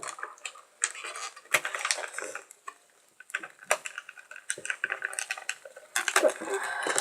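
Hard plastic clicking, knocking and clattering at an irregular pace as a gaming headset and its packaging are handled during unboxing.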